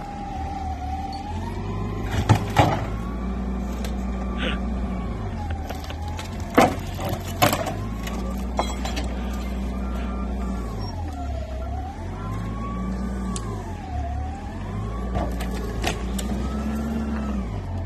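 Forklift engine running and revving as it pushes a stripped car shell, with a whine that rises and falls with the revs. Several sharp metallic clunks and rattles from the rotten body shell as it is shoved along.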